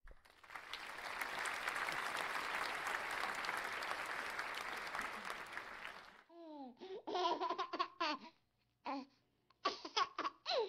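Applause for about six seconds that cuts off suddenly, followed by several short bursts of laughter.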